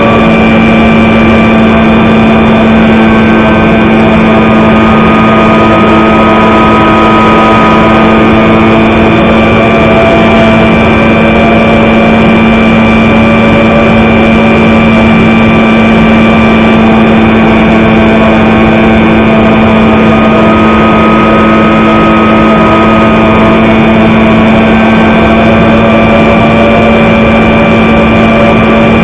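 Radio-controlled model airplane's motor and propeller running steadily at constant power in flight, heard close up from a camera mounted under the wing.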